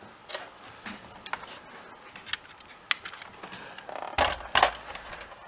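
Plastic and metal parts of a PS4 disc drive being handled during reassembly: scattered light clicks and taps, with a louder knock and rustle about four seconds in.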